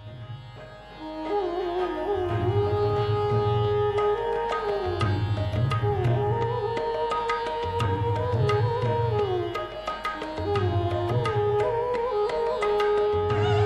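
Instrumental Carnatic music: a melody that slides between notes, played over a steady beat of drum strokes.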